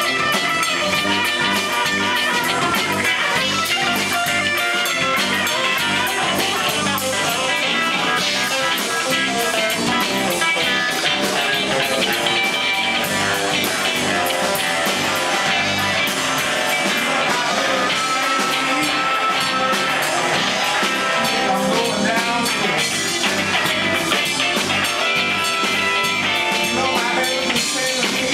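Live blues-rock band: an electric guitar plays lead lines over a drum kit and bass guitar.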